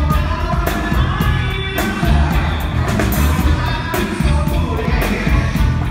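Live band playing a song with singing: heavy bass and drums, with steady cymbal and snare hits.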